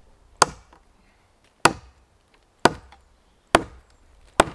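Condor Bushcraft Parang chopping into a log, five sharp chops about a second apart.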